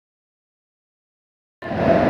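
Dead silence, then about one and a half seconds in, railway platform noise cuts in suddenly: voices over a steady low din from a train.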